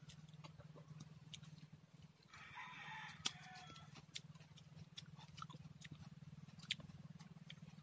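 A rooster crows once, faintly, about two and a half seconds in, lasting about a second, over a steady low hum and scattered small clicks.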